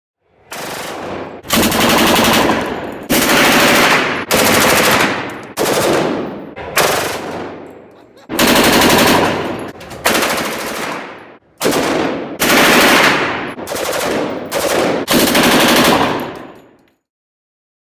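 Automatic gunfire from a machine gun: about a dozen loud bursts of rapid shots, each lasting a second or so and trailing off, following one another with short gaps.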